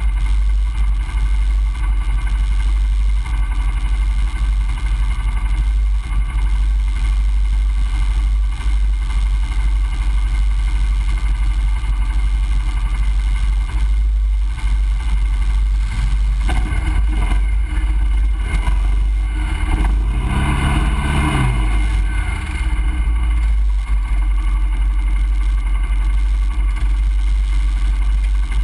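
ATV engines idling with a heavy low rumble close to the camera mount. About twenty seconds in, an engine revs up for a couple of seconds as the quads move off along the trail.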